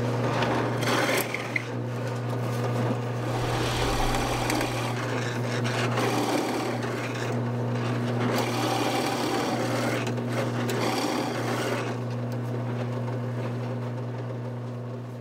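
Drill press running with a steady motor hum while a Forstner bit bores into a wooden board with a rasping, cutting noise. The cutting noise stops about twelve seconds in, leaving the motor hum, which fades near the end.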